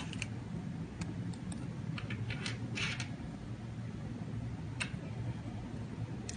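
Faint scattered clicks and short rustles of small plastic connectors and an electronics module being handled and unplugged by hand.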